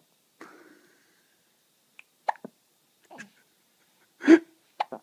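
A baby hiccupping: about five short, sudden hiccups spread out at uneven intervals, the loudest near the end.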